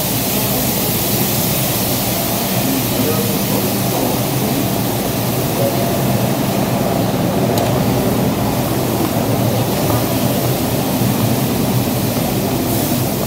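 R142 subway train standing at the platform with its doors open, giving off a steady loud hum and hiss, with a brief burst of hiss near the end.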